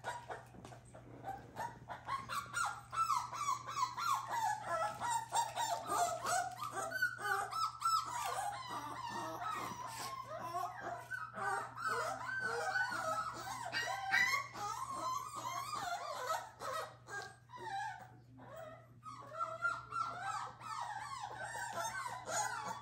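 Seven-week-old Cardigan Welsh Corgi puppy whining and crying almost without a break, in high, wavering cries with a couple of brief pauses. The puppy is shaking and nervous.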